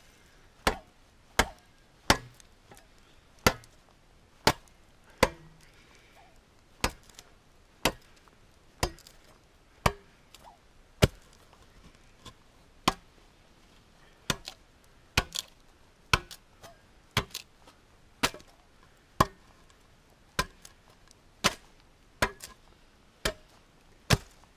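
Repeated chopping strikes, about one a second, of a handsaw's sharpened back edge used as a cleaver, hewing shavings off the sides of logs.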